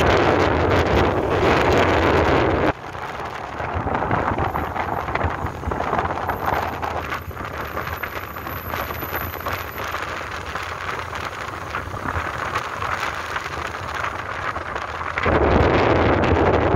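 Wind rushing over the microphone of a moving motorbike, with the engine and road noise underneath. The rush drops sharply about three seconds in and comes back loud near the end.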